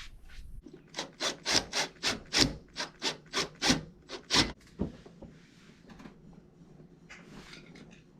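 A new plastic front bumper reinforcement bracket rubbing and scraping against the car as it is worked into place. There are about a dozen short scraping strokes, roughly three a second, then fainter rubbing for the last few seconds.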